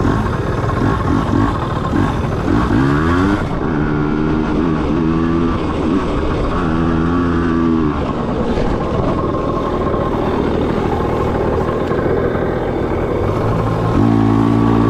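Small dirt bike engine running under the rider, revving up about three seconds in and held at steady revs in stretches, with another burst of throttle near the end.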